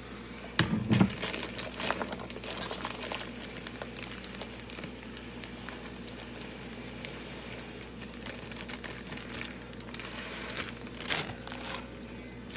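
Plastic bag of long-grain rice crinkling and rustling while rice is measured out. Knocks and clicks come about a second in, with another burst of crackling near the end.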